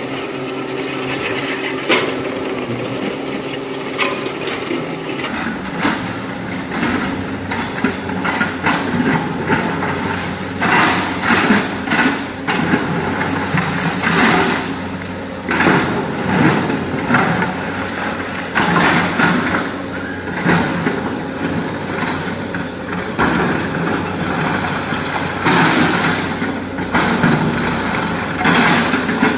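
SANY SY225 crawler excavator's diesel engine running under load as it digs broken rock, with frequent clattering knocks of stone against the steel bucket from about six seconds in.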